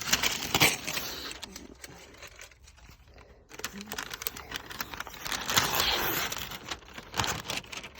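Masking tape being peeled off freshly sprayed trim, with tearing and crinkling of the tape, in two spells with a quieter pause in between.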